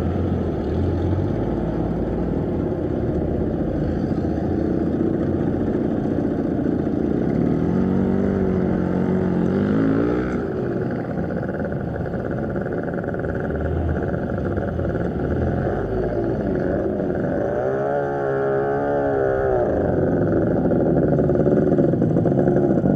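Road traffic: a constant rumble of car and motorcycle engines, with two engines rising and wavering in pitch as they pass or rev, about eight seconds in and again around eighteen seconds.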